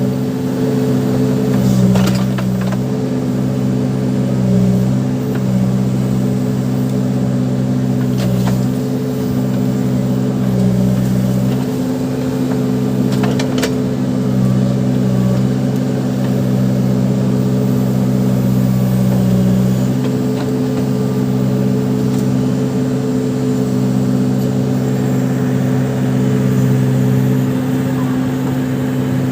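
Case 580 Super backhoe loader's diesel engine running steadily while working, its note shifting a few times, with a few sharp knocks.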